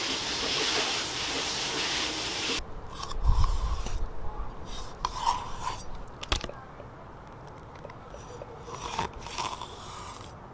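A steady hiss for the first couple of seconds, then a kitchen knife scraping and cutting into a largemouth bass on a wooden cutting board, in short irregular bursts with a sharp knock about six seconds in.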